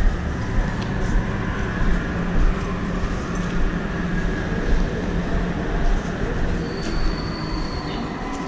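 Paris Métro train rumbling past, with a thin, high wheel squeal coming in near the end as the rumble begins to fade.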